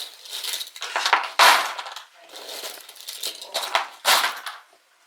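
Loose cardboard jigsaw puzzle pieces rattling and clattering as they are broken up and gathered, in several irregular bursts, loudest about a second and a half in and again around four seconds.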